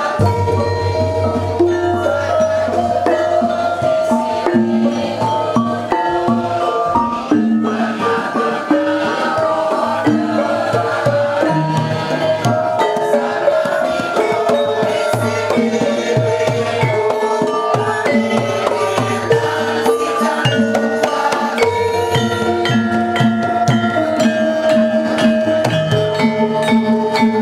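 Javanese gamelan music: metallophones ring out a stepped melody over kendang drum strokes.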